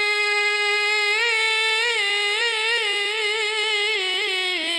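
A man chanting Quran recitation in the melodic tilawah style through a hand microphone: a long held note, then from about a second in a wavering, ornamented run of rapid pitch turns.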